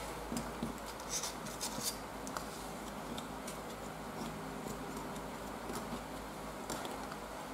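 Scattered small clicks and scrapes of a hand tool working modelling clay on a cutting mat, most of them in the first two seconds and again near the end, over a steady low hum.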